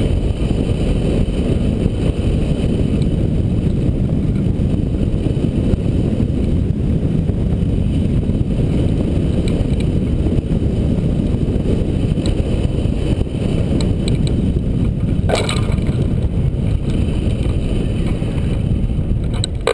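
Airflow buffeting a hang glider-mounted camera's microphone in flight, a loud, steady low rush of wind noise. A brief knock sounds about fifteen seconds in.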